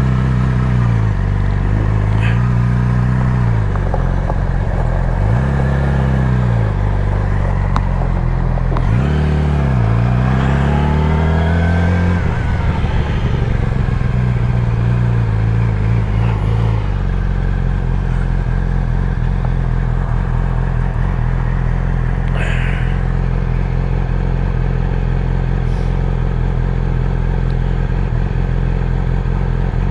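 Motorcycle engine pulling away: for the first dozen seconds the engine note rises and drops back several times as it shifts up through the gears, then it settles into a steady cruising note.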